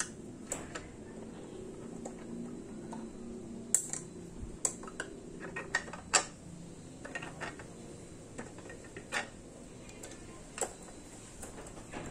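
Scattered small metallic clicks and clinks of a hex key working the bolts on the plastic back cover of an Audio Seven AS441 compression tweeter driver as the four bolts are undone. The ticks are irregular, and a few are sharper about four and six seconds in.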